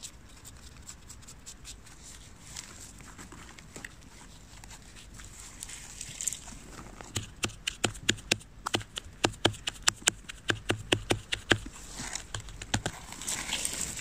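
Scrubbing strokes over the cap of a níscalo (Lactarius milk cap) as dirt is cleaned off it. The strokes are sparse and light at first, then turn into a quick run of sharp scrubbing strokes, about three a second, for several seconds. A rustle of grass and leaves comes near the end.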